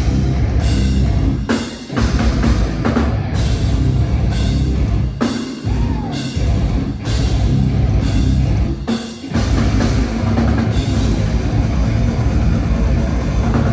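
A heavy metal band playing loud live, with the drum kit and bass drum to the fore. The band stops short for a moment about two, five and nine seconds in, and each time comes straight back in.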